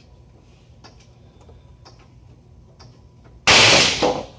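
Bonded carbon fibre shear test piece failing under a chain pull of about 2,450 pounds: a sudden loud bang about three and a half seconds in, dying away over most of a second. Before it, faint ticks about once a second.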